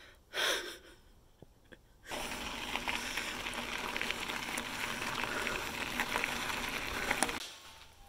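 One heavy, gasping breath about half a second in. From about two seconds in, mountain-bike tyres roll over a loose gravel track with a steady crunching crackle, which cuts off suddenly near the end.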